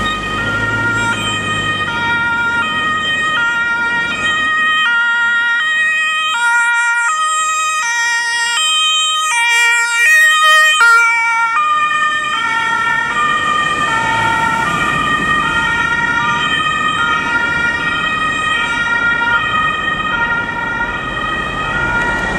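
Two-tone emergency horn of a fire brigade crew transport van, stepping back and forth between two pitches. It grows louder as the van passes close about ten to eleven seconds in, then fades a little as it drives away, over road traffic noise.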